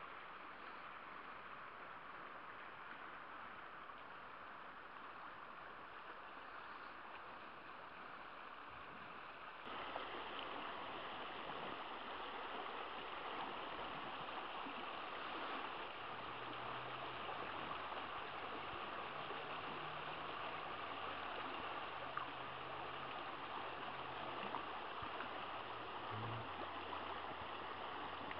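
River water rushing over shallow rocky riffles, a steady hiss of running water that turns suddenly louder about ten seconds in.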